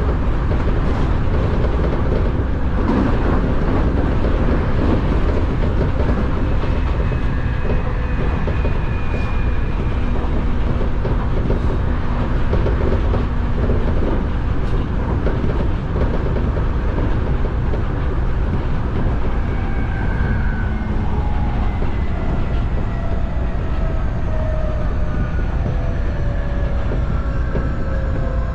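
Nankai Railway electric train running on the line, heard from inside the cab: a steady rumble of wheels on rail with occasional rail-joint clicks. In the last third the traction motors' whine falls steadily in pitch as the train slows into a station.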